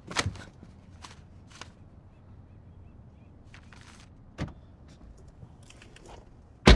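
A passenger getting into a car: a few light clicks and knocks and a soft thump, then the car door slamming shut near the end.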